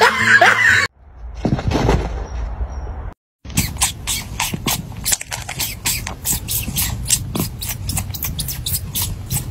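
A cat chewing and sucking at its own paw, making a quick, irregular run of small clicks and smacks, several a second.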